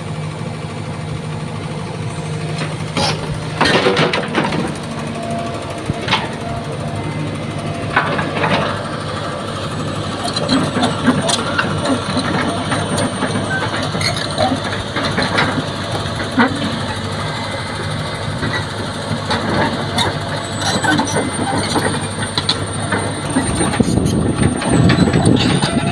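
Hydraulic excavator's diesel engine running steadily, with scattered sharp metallic knocks and clanks from the machine at work.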